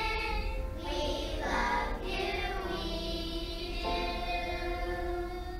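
Children's choir singing, the phrase settling into a long held note about four seconds in.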